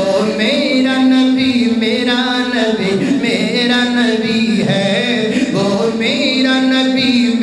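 A man singing a naat, an Urdu devotional poem, into a microphone, holding long drawn-out notes with ornamented turns between them.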